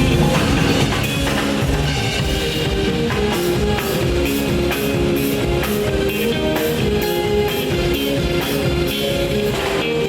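A live rock band playing: a drum kit with a steady beat, and bass and guitar playing a moving line of held notes. Regular cymbal strokes, about three a second, come in about three seconds in.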